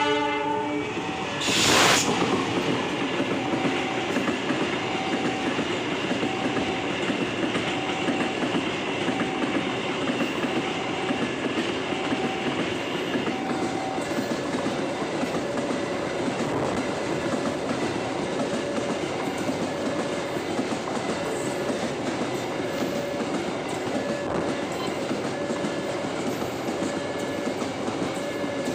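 Long container freight train hauled by a CC 206 diesel-electric locomotive passing at close range, the wagon wheels clattering over the rails in a steady rumble. A loud burst about two seconds in marks the locomotive going by.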